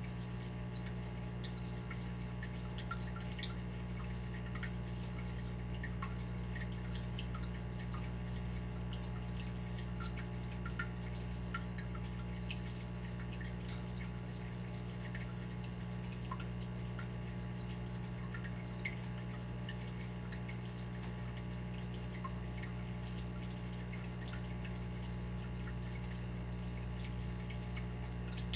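Water dripping and trickling, with many small, irregular droplet ticks over a steady low hum.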